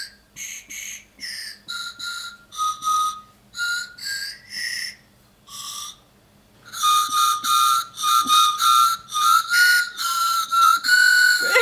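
Whistle Pop lollipop whistles tooting a simple tune in short, breathy notes at a few slightly different pitches. It starts with one whistle, then from about seven seconds in two whistles toot together more quickly, and it ends on a longer held note.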